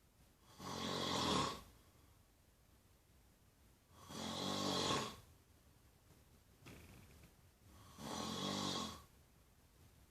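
Snoring: three snores about four seconds apart, each lasting about a second.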